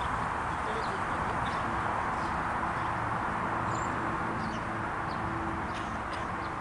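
Steady open-air background hiss with faint, brief high chirps scattered through it.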